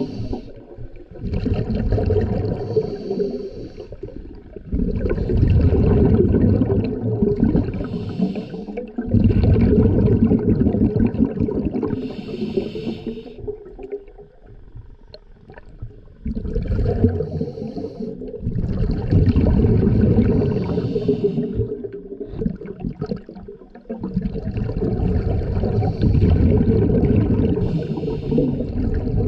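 Scuba diver breathing through a regulator underwater: hissing inhalations alternate with exhaled bubbles rumbling and gurgling, in a slow cycle that repeats every several seconds.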